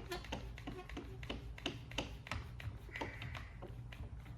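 Trigger-operated one-handed bar clamp, its jaw reversed to work as a spreader, clicking as the trigger is squeezed again and again, about three clicks a second. There is a brief squeak about three seconds in.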